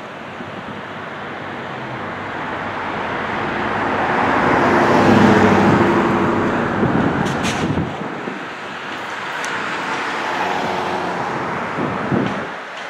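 Two EMD GP38-2 diesel locomotives working hard upgrade at full throttle as they approach, their 16-cylinder engines running with a steady drone. The sound swells to its loudest about five seconds in, eases off, and builds again near the end.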